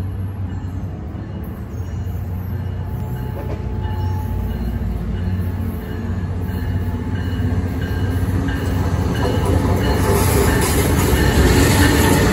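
Tri-Rail BL36PH diesel-electric locomotive approaching and drawing alongside, its engine a steady low drone that grows louder, with wheel and rail noise swelling from about ten seconds in as it passes close.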